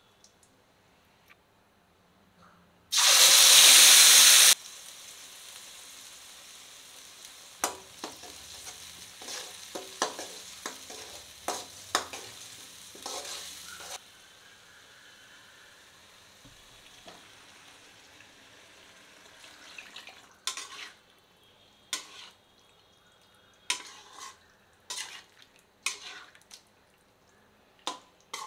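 Food frying in hot oil in a metal kadai. About three seconds in, a loud burst of sizzling as ingredients hit the hot oil lasts a second and a half, then settles into a steady frying hiss with sharp clicks of stirring against the pan. Later the frying is quieter and broken by separate taps of the stirring utensil on the pan as chicken pieces are turned.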